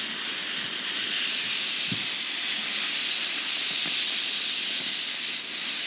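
A ground firework fountain spraying sparks with a steady, even hiss.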